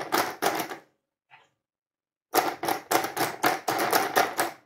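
Plastic toothed wheels of a clown toy mill being turned by hand, clicking rapidly at about six clicks a second, in a short run and then, after a pause, a longer one.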